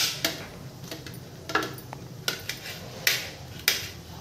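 Kitchen knife cutting a red onion: sharp, irregular cutting clicks, about seven strokes.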